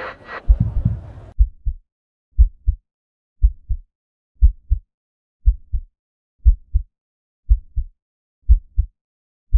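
Heartbeat sound effect: paired low thumps, lub-dub, about once a second, heard alone after a muffled noisy sound cuts off a little over a second in. It stands for the woman's heartbeat during a panic attack.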